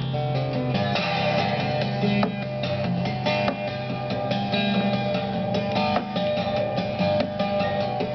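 Acoustic guitar played live: quick plucked melody notes ringing over a steady low bass note.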